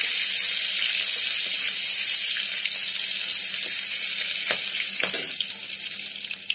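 Whole spices (bay leaves, cardamom pods, cloves and cinnamon) sizzling in hot oil in a metal kadai: a steady frying hiss that eases slightly near the end, with a couple of faint spatula taps against the pan.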